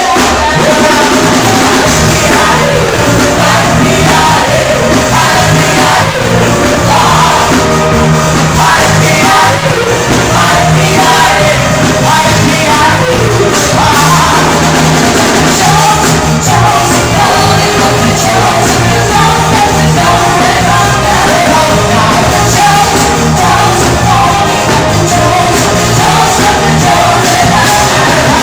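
Loud music with singing, running without a break.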